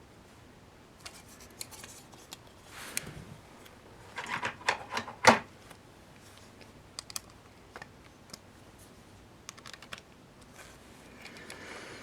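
Light clicks and taps of small hard parts being handled: acrylic case panels, screws and nuts. A quick cluster of sharper clicks comes about four to five seconds in, the loudest just past five seconds, with scattered single ticks before and after.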